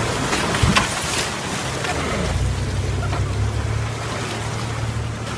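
Chevrolet Blazer ZR2 engine running low and steady while crawling off-road, with its front tyre splashing through muddy creek water and knocking over stones about a second in. The engine hum dips briefly about two seconds in and then returns as the truck climbs out onto the dirt trail.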